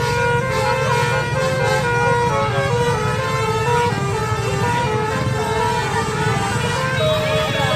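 A bus's multi-tone basuri 'telolet' horn playing a melody of held notes that step from pitch to pitch, over the low rumble of the bus engine.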